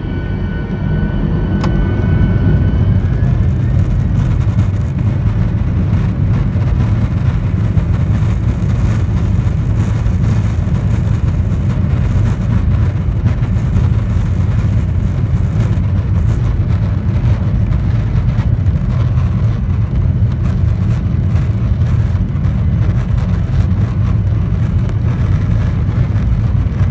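Jet airliner's turbofan engines at takeoff power during the takeoff roll, heard from inside the cabin as a loud, steady low rumble. A high engine whine fades in the first couple of seconds as the rumble swells.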